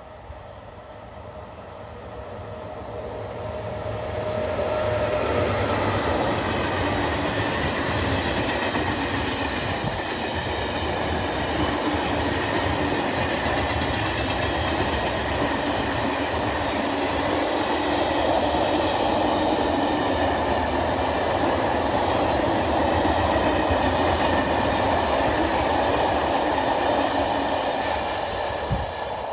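A train passing by: its wheels run on the rails, building up over the first four seconds. It holds a long, steady, loud rumble and clatter for over twenty seconds, then starts to fade near the end.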